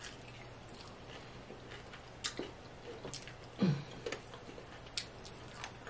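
Faint, wet mouth sounds of a person eating crispy fried chicken wings: small lip smacks and clicks while chewing and picking meat off the bone, with a short low hum of the voice about three and a half seconds in.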